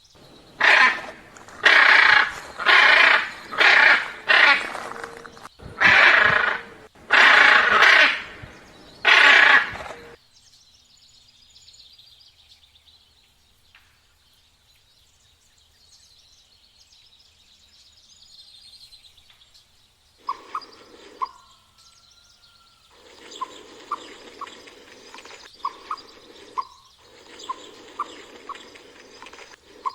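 About eight loud animal calls in quick succession, each under a second long. After a quiet stretch with faint background hiss, a run of short, regular bird chirps.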